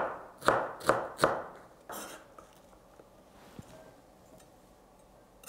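Kitchen knife chopping red bell pepper on a wooden cutting board: four quick knocks about half a second apart, stopping about two seconds in.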